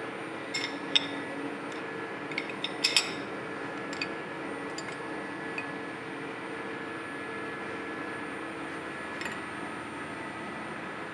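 Light metallic clinks and taps of a wrench on the steel nuts and body of a lathe's compound rest as it is loosened to be swung around, scattered through the first half with the loudest cluster about three seconds in, over a steady machine hum.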